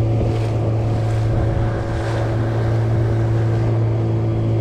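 Boat engine running at a steady speed under way, a constant low hum, with wind on the microphone and water noise.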